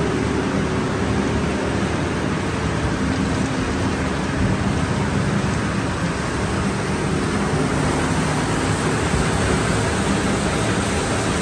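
Floating washer tank of a plastic film washing line running: rotating paddles churn water thick with shredded plastic film in a steady splashing rush, with a low machine hum underneath.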